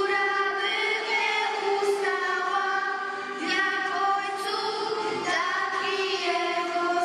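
A children's choir singing a slow song, its notes held about a second or more each.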